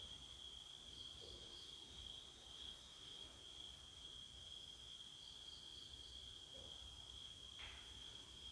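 Near silence filled by the faint, steady chirring of night insects at one high pitch.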